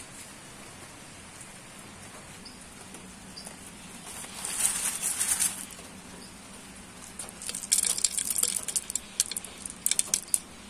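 Coarse gravel scooped by hand from a woven plastic sack with a rustling crunch, then stones dropped into a small terracotta pot, clattering in a quick irregular run of clicks as the bottom drainage layer goes in.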